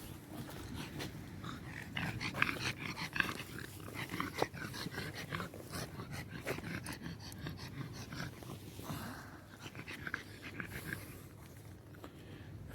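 A dog panting in quick, short breaths close by.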